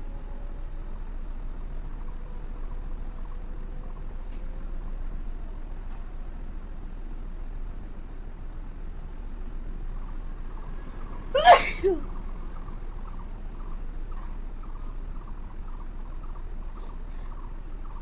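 A person sneezing once, a sudden loud burst about two-thirds of the way in, with a smaller second catch right after it, over a steady background hiss.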